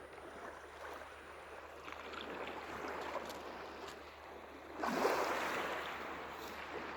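Small lake waves washing onto a sandy shore. A larger wave surges in and breaks about five seconds in, then fades away.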